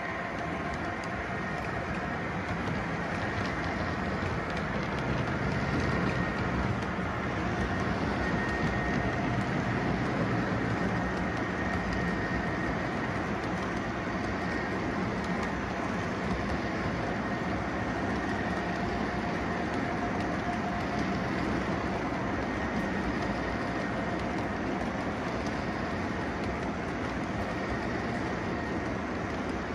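Model train of double-stack container well cars rolling steadily along the layout track: a continuous rumble and clatter of small wheels on rail joints.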